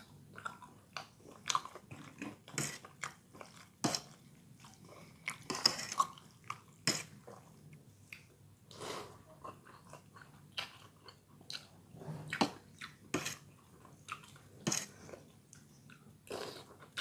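A person chewing and biting into bakso Malang meatballs and noodles close to the microphone, with irregular mouth clicks and smacks throughout.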